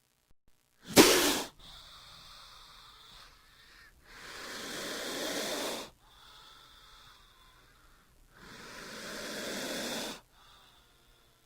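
King cobra hissing: a short, loud, sharp hiss about a second in, then two long hisses of about two seconds each that swell and then stop abruptly.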